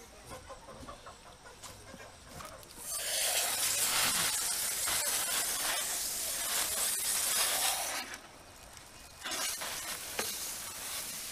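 Water from a garden hose spray nozzle rinsing out a butchered chicken carcass: a steady rush of spray that starts about three seconds in, stops for about a second, then starts again.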